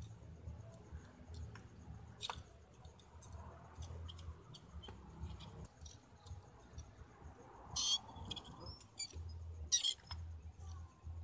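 Small clicks, taps and scrapes of brass tube parts and paper being handled and fitted together by hand, with a sharper cluster of clicks about 8 seconds in and again about 10 seconds in, over a low steady hum.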